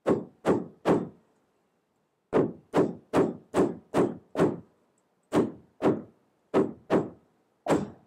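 Hammer striking wood, fourteen sharp knocks in uneven runs of one to six blows, each run at about two blows a second.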